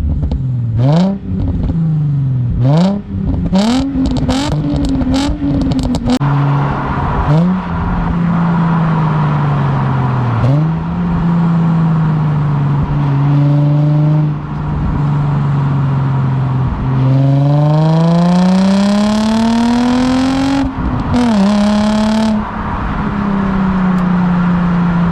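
Nissan 350Z's VQ35DE V6 through a cheap four-tip aftermarket back box, being driven: a run of quick throttle blips, then steady running, a long climb in revs under acceleration about 17 seconds in, a gear change, and a steady cruise.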